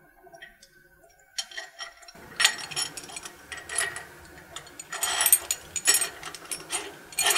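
Steel bolts and spacers being handled and fitted by hand at an engine's water pump while an idler bracket goes on: light metallic clicks and clinks in irregular clusters, starting about two seconds in.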